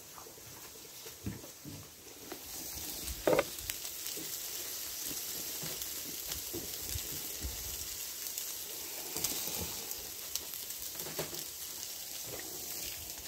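Sausages sizzling on a barbecue grill plate: a steady hiss with small crackles and pops, starting about two seconds in. A brief thump about three seconds in is the loudest sound.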